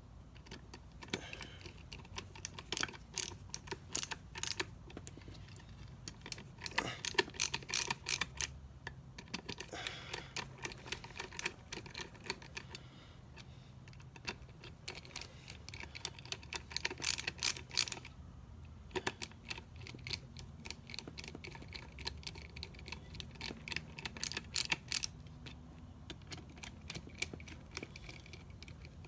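Small metal parts of a Mercedes 722.6 transmission valve body clicking and tapping in quick, irregular clusters with short pauses, as its valves and stiff springs are taken out and handled. A low steady hum runs underneath.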